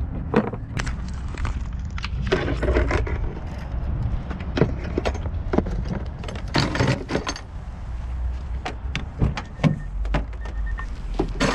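Irregular clicks, knocks and rustling from handling a plastic tool case and a corded impact wrench with its power cord, over a steady low rumble.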